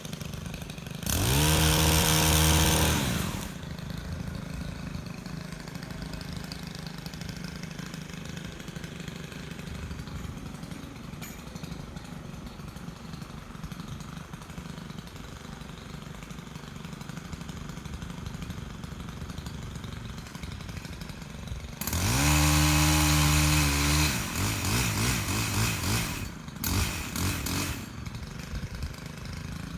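Two-stroke chainsaw idling, revved up to high speed for about two seconds near the start, then again later, followed by several short, uneven bursts of throttle before it drops back to idle.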